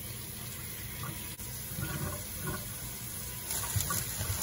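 Kitchen faucet running steadily as potatoes are rinsed under it.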